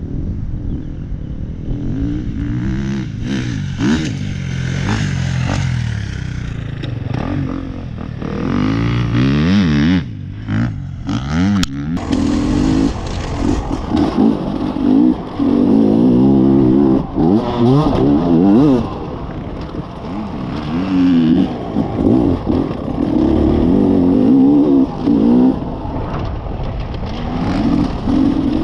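Beta RR enduro motorcycle engine revving hard as it is ridden over a dirt track, its pitch climbing and dropping again and again with each throttle opening and shift, heard close up from on board. The engine drops off briefly a few times about ten to twelve seconds in.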